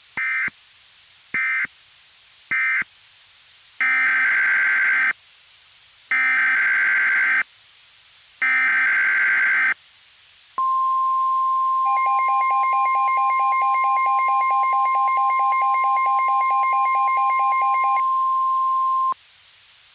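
NOAA Weather Radio SAME alert signalling: three short data bursts closing the previous message, then three longer warbling data-header bursts opening a new alert, followed by the steady 1050 Hz weather-radio warning alarm tone for about eight seconds. A buzzy, rapidly pulsing tone is layered on top for most of the alarm.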